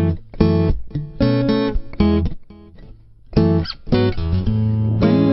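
Instrumental break in a song: a guitar strums chords in a steady rhythm, dropping off briefly about halfway through before the strumming picks up again.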